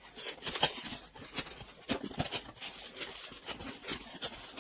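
Irregular rustling, crinkling and small knocks of packaging being handled as a computer monitor is unboxed.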